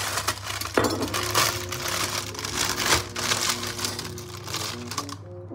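Knife chopping green beans on a cutting board: rapid, irregular taps that stop about five seconds in, with soft background music underneath.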